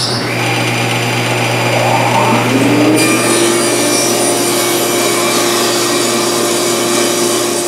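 Table saw running and ripping a walnut board lengthwise, the blade cutting through the full thickness. The sound grows harsher about three seconds in and holds steady through the cut.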